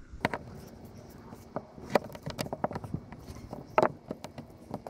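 A chisel used as a scraper, scraping old caulking off an RV roof around a skylight: uneven scrapes and clicks, the loudest near the end.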